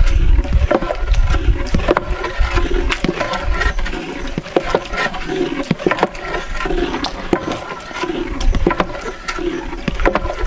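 Thick mutton haleem being beaten with a long paddle in a large metal pot: a wet squelching, gurgling sound with each stroke, and many sharp knocks of the paddle against the pot. This is the mashing stage, when the cooked meat and grain are worked into a smooth paste.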